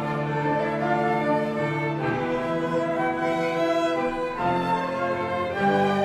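Flute ensemble with violin playing a slow piece in held chords that change together about every one to two seconds.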